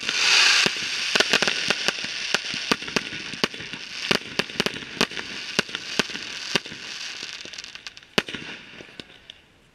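Aerial fireworks bursting, with a quick run of sharp cracks and crackling. A loud rushing burst comes in the first second, and the crackle thins out and fades near the end.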